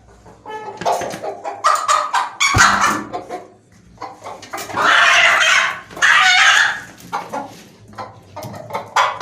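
A hen calling in a run of harsh, barking squawks and wheezing squeaks. The loudest are two long, harsh calls about halfway through, with shorter, softer calls around them.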